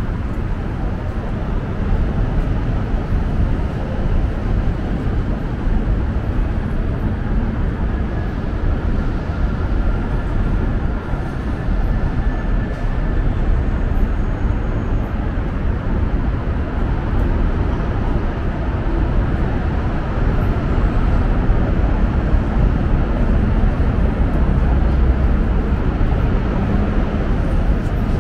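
City street ambience: a steady low rumble of traffic, with faint passing voices.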